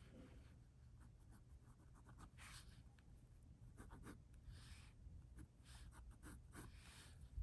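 Faint scratching strokes of a drawing tool on paper, several short strokes and some longer ones, over a low steady room hum.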